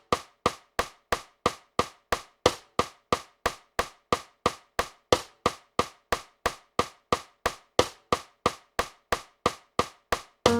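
Metronome clicking steadily, about three clicks a second, with every eighth click a little louder, counting in the tempo before playback.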